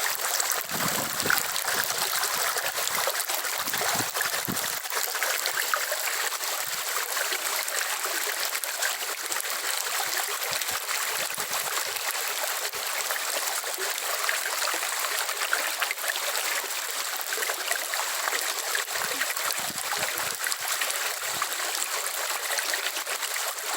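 Steady rain falling, an even hiss with a few soft low thumps.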